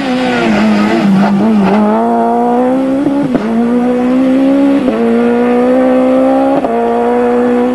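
A Citroën Super 1600 rally car's engine is held at high revs under full acceleration. Its pitch creeps up in each gear and drops briefly at four quick upshifts, about every one and a half seconds.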